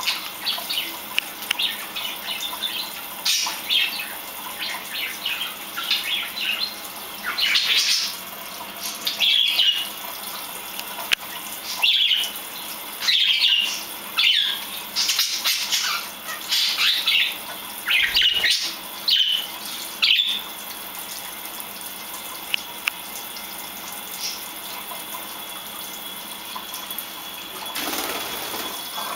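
Tap running steadily into a kitchen sink while pet budgies chirp and chatter as they bathe under it. The chirping stops about two-thirds of the way through, leaving the steady run of water.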